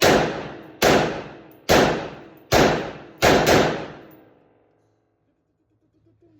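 AR-15 rifle firing six shots: four evenly spaced about a second apart, then two in quick succession, each crack followed by a long echoing decay.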